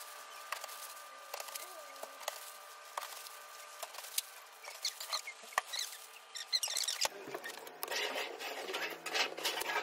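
Thin plastic food bags crinkling and rustling as bagged meat portions are handled and tied, with small clicks and taps on the counter; the rustling gets denser and louder over the last few seconds. A low steady hum comes in about two-thirds of the way through.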